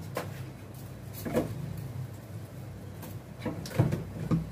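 Several short knocks and clatters of kitchen items being handled over a steady low hum, with a cluster of knocks near the end.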